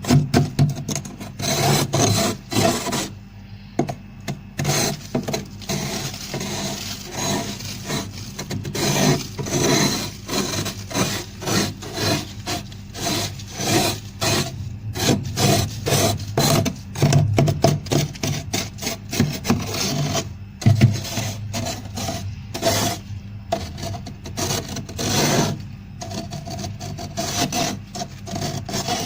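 Fluffy frost being scraped off the inside of a fridge freezer: rapid rasping scrapes, several strokes a second, with a few short pauses.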